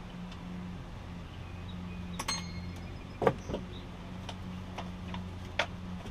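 A few light clicks and clinks of hand tools and small engine parts being handled while a Kohler mower engine is taken apart, the sharpest about halfway through and again near the end, over a steady low hum.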